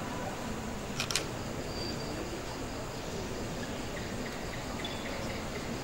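Steady hiss of hall and recording noise between lines of dialogue, with a sharp double click about a second in and a few faint, brief high chirps.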